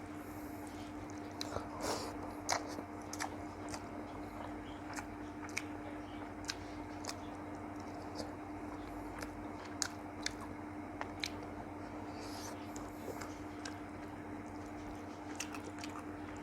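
A person chewing and biting fish curry with rice, heard close up: irregular small clicks and wet mouth sounds, over a faint steady hum.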